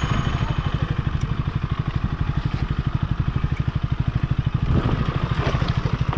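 Motorcycle engine running at low revs, an even, rapid putter of firing pulses, picking up a little near the end.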